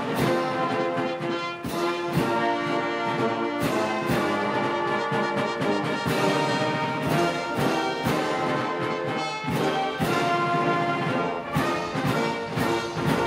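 A military band playing brass music, with held chords and repeated drum and cymbal strikes. The music stops right at the end.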